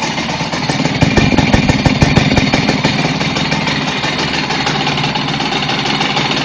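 Simson moped's single-cylinder two-stroke engine running steadily, with a louder stretch of irregular knocking about a second in that lasts a second or so.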